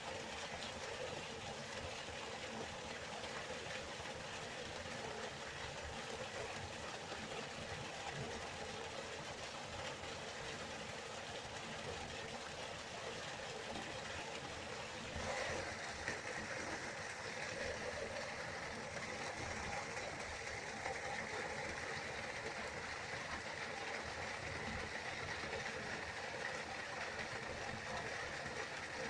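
River water flowing steadily, a continuous rushing noise that grows a little brighter and hissier about halfway through.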